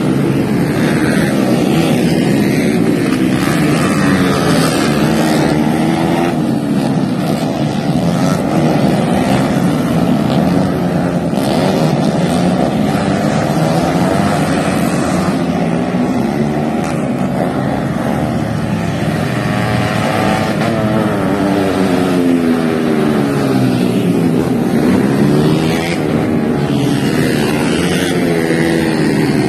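Several 125 cc four-stroke underbone racing motorcycles running hard together, their engine notes rising and falling and crossing as the bikes accelerate, shift and pass.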